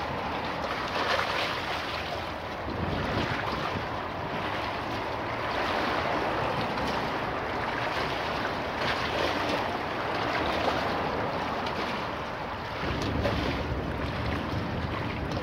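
Choppy river waves slapping against a stone embankment landing and washing over its steps in repeated surges, with wind buffeting the microphone.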